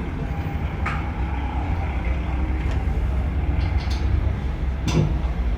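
An engine running steadily with a low rumble, with a few sharp knocks or clicks over it, the loudest about five seconds in.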